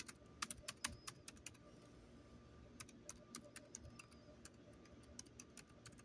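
Faint key clicks from a laptop keyboard as a password is typed in quick runs of keystrokes, with a short pause about two seconds in.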